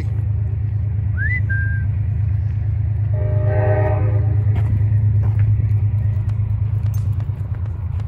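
Passing train rumbling steadily, with a horn blast of about a second some three seconds in. A short whistle rises and then holds about a second in.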